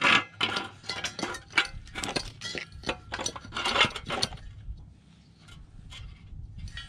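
Handling clatter of a portable camp stove and a small green propane cylinder being fitted to it: a quick run of sharp clicks, knocks and metallic clinks for about four seconds, then only faint handling.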